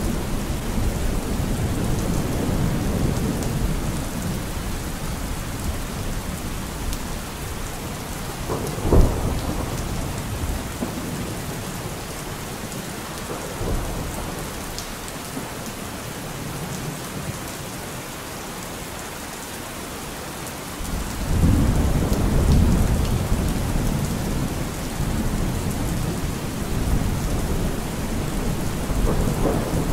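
Steady rain with thunder: a sharp clap about nine seconds in, and a long low rumble that swells up about twenty-one seconds in.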